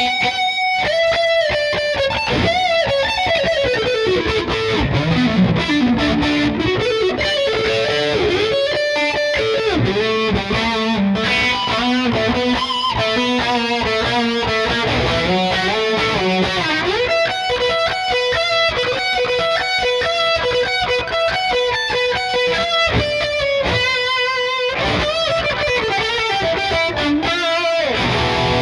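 Epiphone SG G-400 electric guitar played with a distorted tone: a lead solo of fast picked runs and string bends, with long notes held with vibrato in the second half. The playing breaks off briefly near the end before a few more notes.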